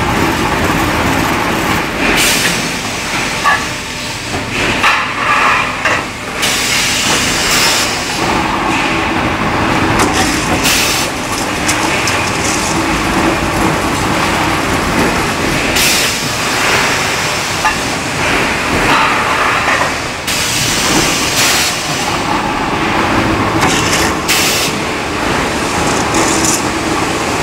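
Sheet-metal edge-trimming and beading machine running: a steady motor hum with scattered clicks and short bursts of harsher noise from the metal being worked.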